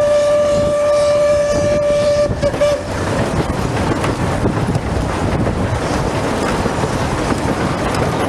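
Narrow-gauge steam locomotive's whistle holding one long steady blast that breaks off about two seconds in with a brief stutter. The train's coaches keep running on the rails with a steady rumble and clatter throughout.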